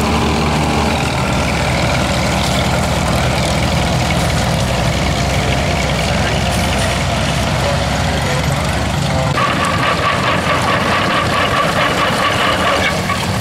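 Antique farm tractor engines running under load while pulling plows. About nine seconds in the sound changes: the low rumble thins and a steady higher-pitched whine joins it.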